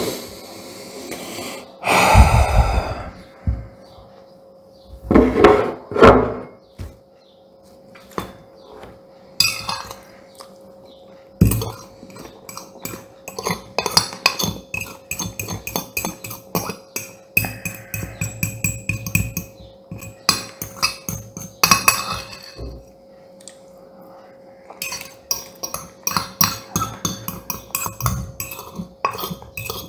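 Metal spoon scraping and clinking against a ceramic plate in quick, irregular runs as the last of the risotto is scooped up. Two louder, longer noisy bursts come in the first several seconds.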